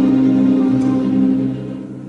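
A school orchestra of violins and guitars with a saxophone soloist holds a long sustained chord, which fades away from about one and a half seconds in.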